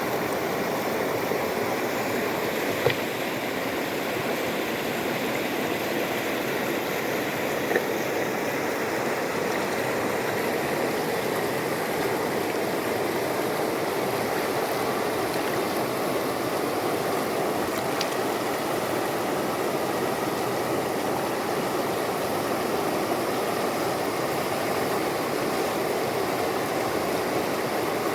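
Hill river flowing: a steady rush of moving water, with two brief sharp clicks about three and eight seconds in.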